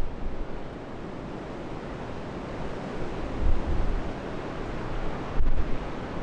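Storm wind buffeting the microphone in low rumbling gusts over a steady rushing noise, with gusts swelling near the start, in the middle and again near the end.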